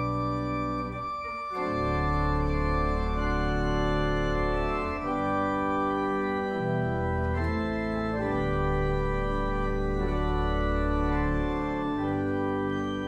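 Organ playing slow, sustained chords over a deep bass, the chord changing every few seconds.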